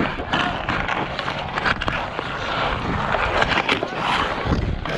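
Ice skate blades scraping and carving across outdoor ice, with the sharp clack of hockey sticks hitting the puck and each other.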